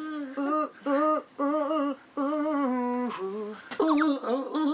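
A man's solo voice singing a melody close to a studio condenser microphone, a string of short held notes with brief gaps between them.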